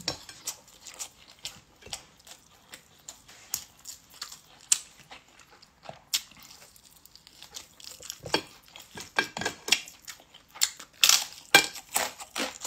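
A person eating rice with her fingers close to the microphone: chewing, lip smacks and short wet clicks. The clicks come more often and louder in the last few seconds.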